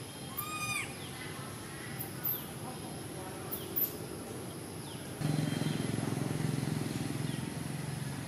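Baby macaque crying: one high call that rises and falls about half a second in, then a few fainter short calls. A low steady hum comes in suddenly about two-thirds of the way through.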